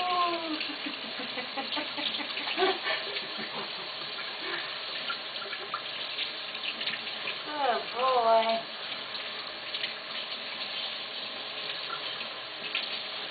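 Tap water running steadily and splashing as a small pet monkey is washed under it, with one short pitched vocal sound about eight seconds in.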